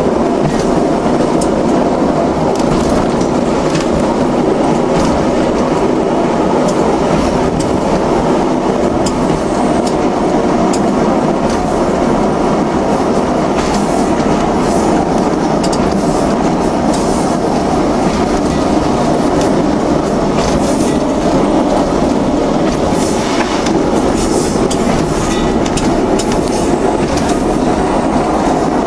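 Regional passenger train running steadily along jointed track: a constant rumble of wheels on rail, with rail-joint clicks and occasional brief wheel squeal on curves.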